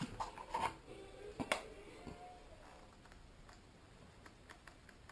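Handling noise on a tabletop: several sharp clicks and knocks in the first two seconds as tools and tubes are picked up, the loudest about one and a half seconds in, then faint ticks as a caulking gun with a silicone cartridge is worked.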